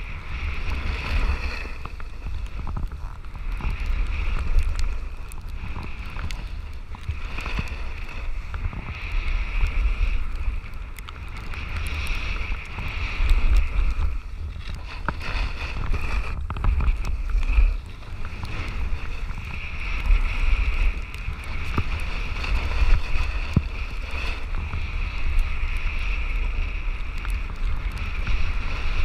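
Wind buffeting an action camera's microphone while snowboarding downhill, a deep rumble that swells and eases, over the steady hiss of a snowboard sliding and carving through powder snow.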